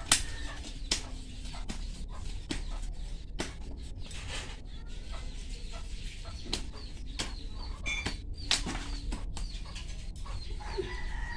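Hand trowel scraping and digging into loose potting soil around an elephant ear plant's roots, an irregular run of sharp scrapes and knocks, the loudest just after the start. Faint short calls sound in the background.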